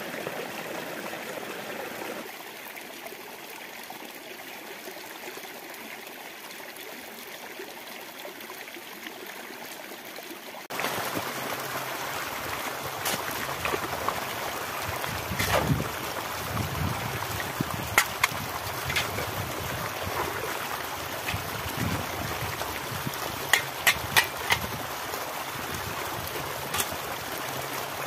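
Small stream trickling and splashing over rocks; about ten seconds in, a louder flow of water in a stony channel takes over. Over that flow come a few sharp clicks and scrapes, with a cluster near the end, as a shovel blade strikes stones.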